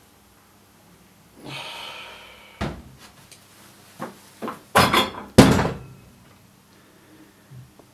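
A wooden door creaking open, a few light knocks, then two heavy bangs a little past halfway as the door is shut.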